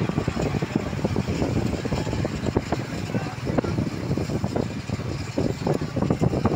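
Motorcycle engines running at speed in a pack, with rough road and wind noise from riding along with them.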